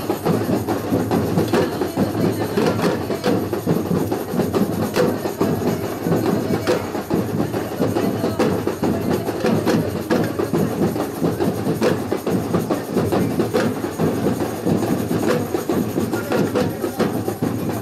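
Batucada: a samba percussion ensemble of about twenty drummers playing a continuous, dense rhythm, with sharp strokes standing out over the drums.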